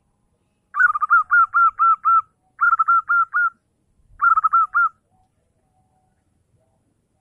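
Zebra dove (perkutut) cooing: three runs of quick, clipped repeated notes with short pauses between them, the first run the longest.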